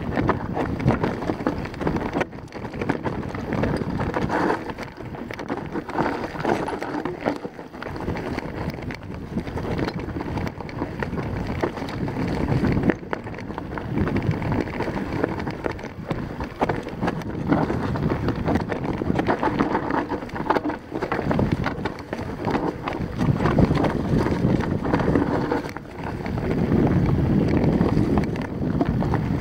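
Mountain bike rolling down a steep rocky trail: tyres crunching over loose stones, with a constant rattle of knocks and clicks as the bike bounces over rock, and wind rushing on the microphone.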